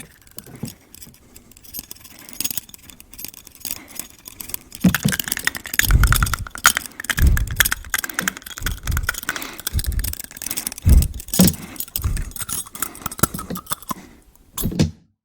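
Rapid jangling and clattering clicks, like small hard objects rattling together, with several dull thumps between about five and twelve seconds in. It dies away just before the end.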